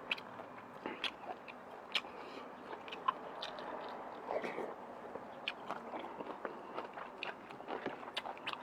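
Close-up mouth sounds of chewing a mouthful of noodles and stewed beef, with scattered sharp clicks.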